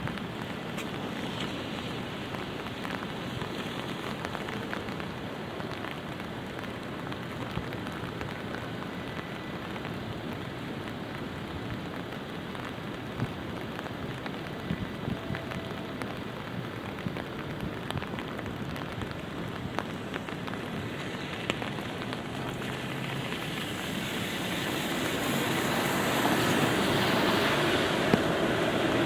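Light rain falling steadily, with scattered drops ticking sharply on an umbrella. Near the end a vehicle's noise swells louder.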